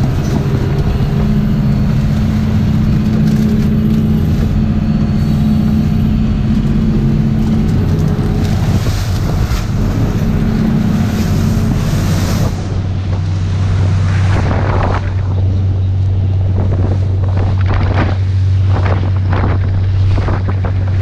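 A lobster boat's engine running steadily under way, with wind buffeting the microphone and water rushing past the hull. About halfway through, the engine settles to a lower, steady hum and repeated splashes of spray come through.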